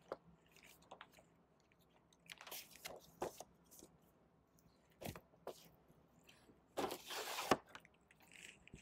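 Faint, scattered rustles and scrapes of paper and card as a vinyl LP is slipped into its paper inner sleeve and the sleeve is handled with its cardboard jacket, the longest rustle about seven seconds in.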